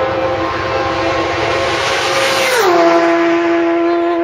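A racing superbike passes at full speed: its engine holds a steady high note as it approaches, then drops sharply in pitch as it goes by, about two and a half seconds in.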